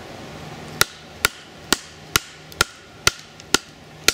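A small froe being hammered down through a short log to split kindling: a steady run of sharp knocks, about two a second, starting about a second in, each with a short metallic ring from the blade.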